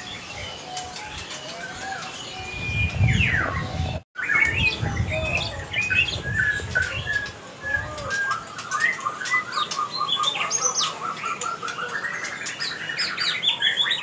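Caged white-rumped shamas (murai batu) singing: varied whistles and chirps, then a long fast run of repeated notes slowly rising in pitch. The sound cuts out for an instant about four seconds in.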